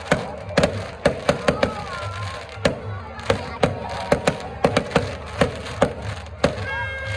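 Fireworks display: aerial shells bursting in quick, irregular succession, about three sharp bangs a second.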